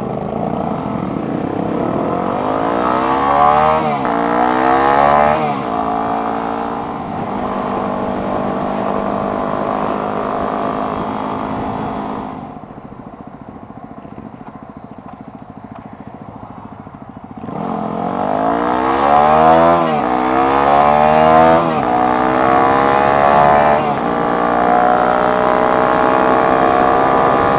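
Motorcycle engine accelerating hard through several upshifts, its pitch climbing and dropping back with each gear change, then holding a steady cruise. About twelve seconds in the throttle closes and it drops to a quieter coast for about five seconds, then it accelerates through the gears again.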